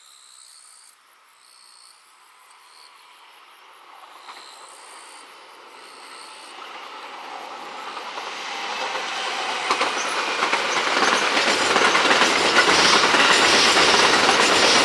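Electric train on the JR Hokuriku Main Line approaching, its wheel and rail noise growing steadily louder until it is passing close by near the end. Insects chirp in the first half before the train drowns them out.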